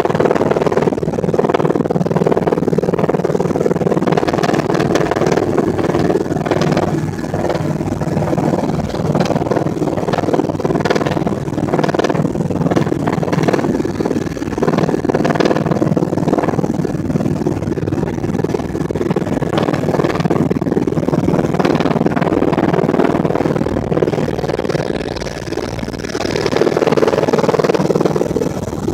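Helicopter rotor and engine noise, loud and steady throughout, with a slight swell near the end.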